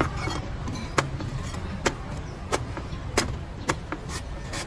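Steady low rumble of street traffic, with a run of sharp taps or clicks about every half second.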